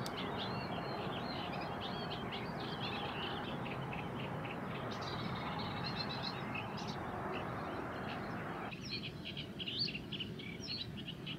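Songbirds chirping and singing, many short calls overlapping, over a steady background hiss that drops away about nine seconds in.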